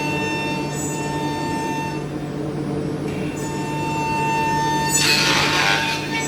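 Woodworking machinery running steadily with a constant whine over a low hum, and a brief hiss about five seconds in.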